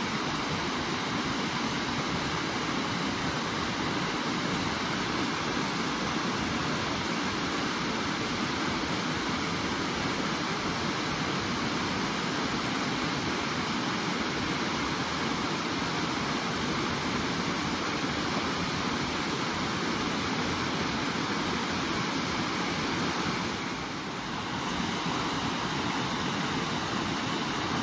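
Steady rush of water from small river rapids, an even noise that dips briefly a few seconds before the end.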